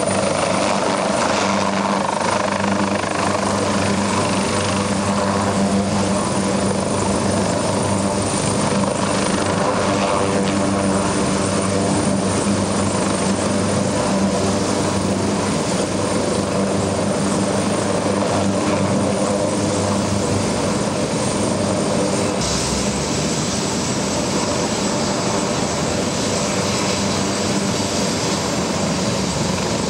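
Helicopter running close by: a steady, loud rotor and engine sound holding one pitch throughout.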